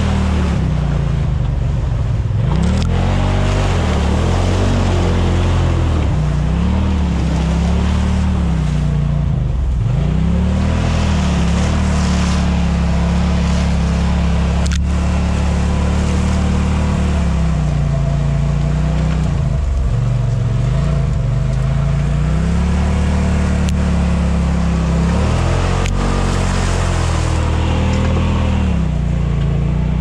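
Polaris off-road buggy's engine running under load as it drives through mud, its revs dropping and climbing back up several times.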